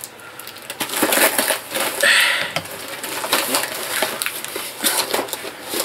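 A parcel box being opened by hand and its packaging handled: irregular crackling and crunching of cardboard and wrapping, with a short hissing tear about two seconds in.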